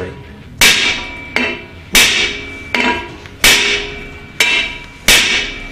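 Hammer striking the steel stem of a hub puller about seven times, sharp metallic taps with a brief ring after each. The puller is under tension on the brake drum and hub, and the sharp raps shock the tapered hub loose from the axle shaft.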